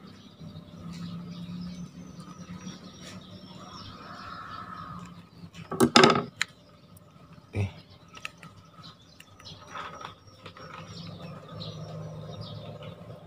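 Handling noise from reassembling a spinning reel: small metal clicks and clinks of reel parts and tools, with a quick cluster of sharp clinks about six seconds in and one more click about a second and a half later, over a low steady hum.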